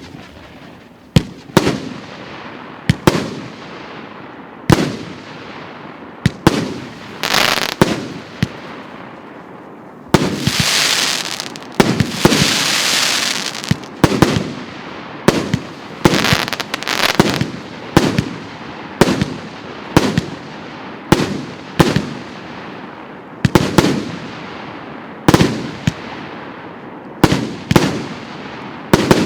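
A 36-shot, 1.2-inch (30 mm) consumer firework cake firing: a long series of sharp bangs, about one or two a second, each trailing off. A denser, louder stretch of overlapping bursts comes about ten to fourteen seconds in.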